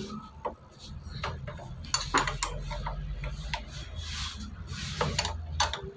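A wrench tightening nuts on a motorcycle's front disc brake assembly: a run of irregular metal clicks, knocks and scrapes.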